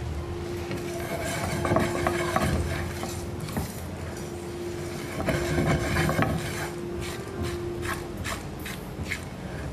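A spatula stirring and scraping whole spices and peanuts as they dry-roast in a frying pan, in uneven rustling scrapes with a few sharp taps against the pan near the end.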